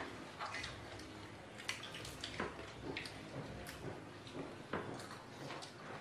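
Quiet sounds of a shared meal: scattered light taps and clinks as people eat rice from plates by hand and pick up and set down drinking glasses, over a faint steady low hum.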